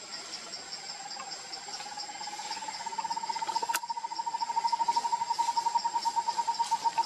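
Insects calling in the trees: a high chirp repeating about four times a second, and a lower fast-pulsing buzz that rises a little in pitch and grows louder from about two seconds in.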